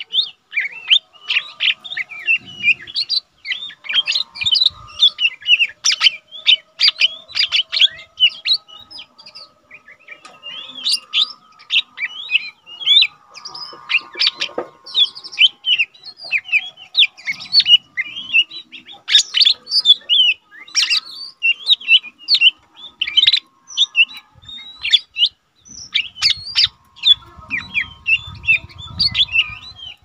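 Lesser green leafbird (cucak ijo mini), a male, singing a fast, unbroken run of high chirps and warbles, with a short pause about ten seconds in.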